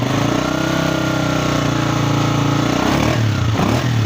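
Honda CG125's single-cylinder four-stroke engine revved with the throttle: the pitch rises at once, holds for about two and a half seconds, then drops back to idle about three seconds in. It runs smoothly, without the crying noise of its old faulty cam gear, now replaced.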